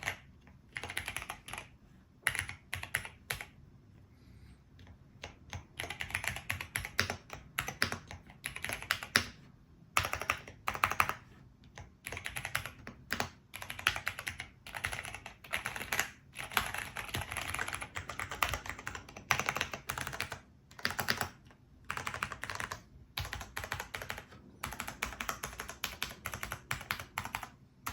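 Typing on a Cherry MX 8.3 mechanical keyboard fitted with Cherry MX2A jade tactile switches: quick runs of key clacks in bursts, with short pauses between them.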